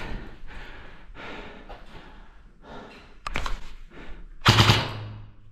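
Airsoft gun fire: a few sharp shots about three seconds in, then a louder rapid burst about four and a half seconds in.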